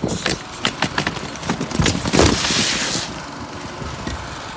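Pneumatic roofing nailers firing in quick, irregular shots as shingles are nailed down, with a loud rush of noise about two seconds in.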